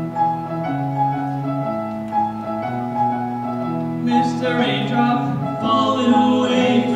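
Live band playing a song: piano and electric guitars holding chords under a lead vocal, the sound fuller and brighter from about four seconds in.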